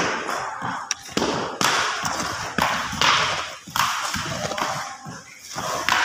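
A shovel scraping and digging into stony soil, with rough scoops that start suddenly about once a second.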